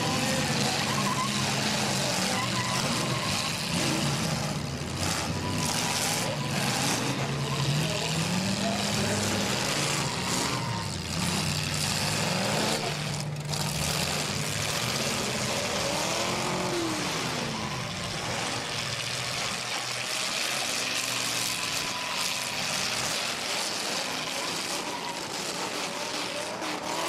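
Engines of several demolition derby cars running and revving up and down as they manoeuvre, over a steady noise of the crowd in the stands.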